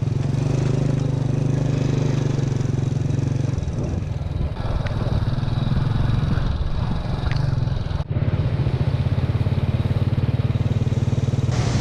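Motorbike engine running steadily while riding, with wind and road noise. The sound drops out for an instant about eight seconds in, then carries on.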